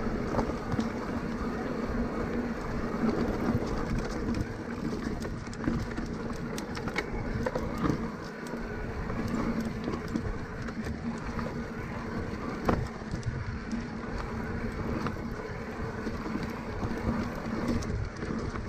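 Cannondale Moterra 2 electric mountain bike riding along: tyres rumbling, with a steady hum from the motor and frequent small rattles and clicks from the bike.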